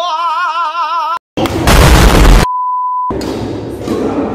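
Edited comedy sound effects. A warbling, wavering pitched sound cuts off about a second in. After a short gap comes a loud explosion-like boom lasting about a second, then a steady censor bleep that blanks out the losing pair's score, before the echoing hall sound returns.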